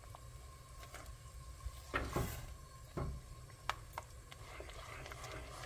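Silicone spatula stirring a pot of melted butter and sugar syrup, with a few light knocks and scrapes against the pot, the loudest about two seconds in.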